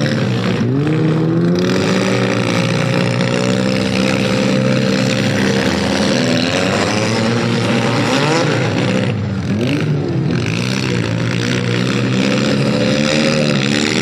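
Several demolition derby cars' engines revving and running hard together, their pitches rising and falling independently as they rev up and ease off.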